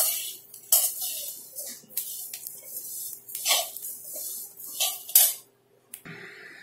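Split lentils and rice being dry-roasted in a metal kadhai, stirred with a slotted metal spatula. The grains rustle and the spatula scrapes the pan in repeated strokes about once a second. The sound cuts off shortly before the end.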